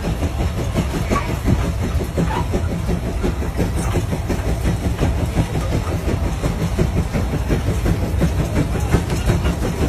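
Case steam traction engine working hard under load, its exhaust chuffing in a rapid, even beat as it pulls a gang plough through sod.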